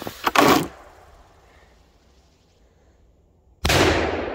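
A homemade catapult snaps as it flings a lit quad-boom firecracker, then about three and a half seconds in the firecracker goes off with a single loud bang that rings out and fades over about a second.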